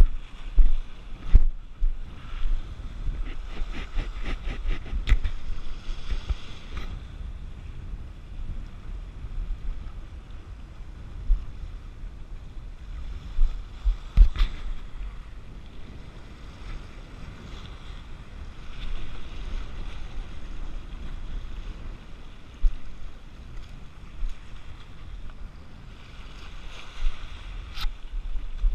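Wind buffeting the microphone over waves washing against shore rocks, with a run of rapid clicks a few seconds in.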